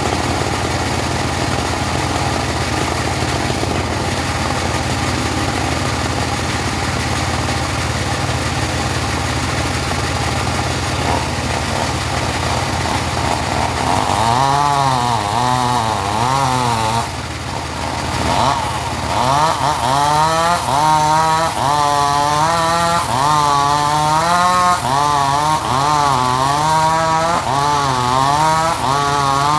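Engine-driven portable sawmill running, steady at first. About halfway through its pitch begins to waver up and down regularly, about once a second, with a brief drop in the middle.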